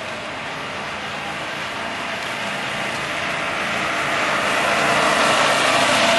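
A utility cart drives up and passes close by, its noise growing steadily louder as it approaches and peaking near the end.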